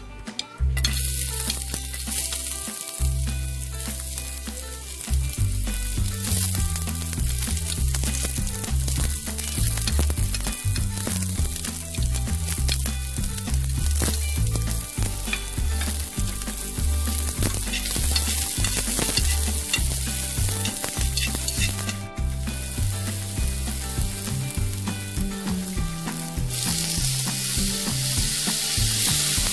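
Minced onion, garlic and ginger sizzling in hot olive oil in a frying pan as they sauté, starting about a second in. The sizzle drops out briefly once and softens near the end.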